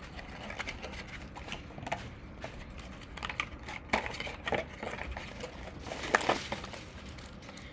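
Scattered light clicks, knocks and rustles of objects being handled, with a few sharper taps about four and six seconds in.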